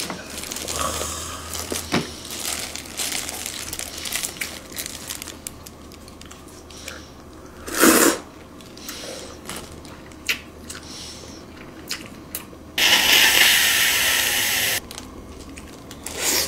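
Close-miked eating of king crab: plastic gloves crinkling, crab shell tearing and cracking, and chewing, with scattered small clicks. A short breathy burst comes about eight seconds in, and a loud, steady hiss lasts about two seconds from around thirteen seconds in.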